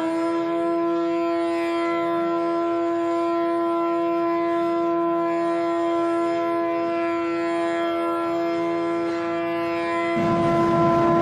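Bansuri flute (Indian bamboo flute) holding one long, steady note with a full set of overtones. Near the end a loud, even rushing noise comes in under the note.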